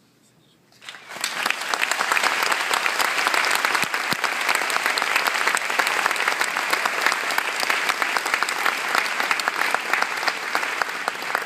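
Audience applauding, breaking out about a second in and continuing as dense, sustained clapping from many hands.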